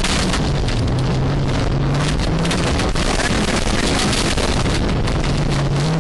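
Honda Civic rally car's engine pulling hard away from a stage start, its pitch climbing through a gear and dropping at the shifts, over loud road and wind noise heard inside the cabin.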